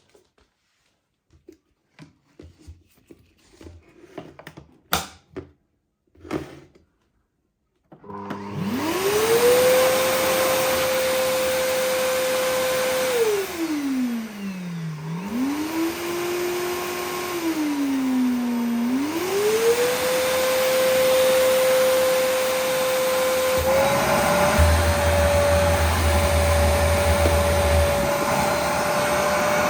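A few light handling clicks and knocks, then about eight seconds in the Samsung SC20M2540JN vacuum cleaner switches on, its motor winding up to a steady whine. Partway through, the motor pitch drops sharply and climbs back, twice, before settling again; near the end it runs a little higher, with a low hum added.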